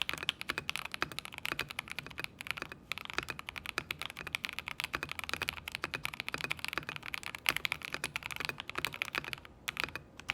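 Fast typing on a 75% mechanical keyboard with lubed Akko Radiant Red linear switches: a dense run of keystroke clacks. There are brief pauses just before three seconds in and near the end.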